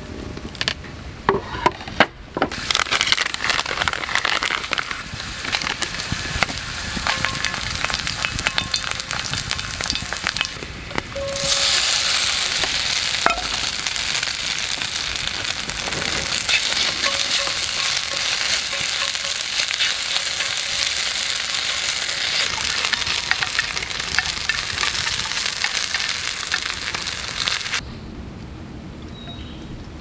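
Sliced garlic and other pieces sizzling and crackling as they fry in hot oil in a black steel pan over a campfire. The sizzle grows louder about eleven seconds in, then cuts off shortly before the end.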